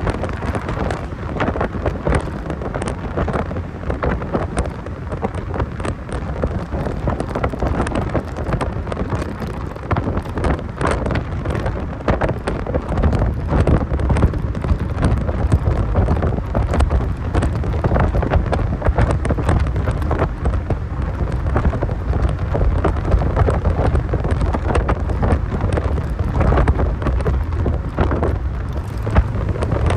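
Driving noise of a 1990 Mazda Miata: a steady rumble of engine, road and wind, heavily buffeted and crackling on the microphone. It gets louder about a third of the way in.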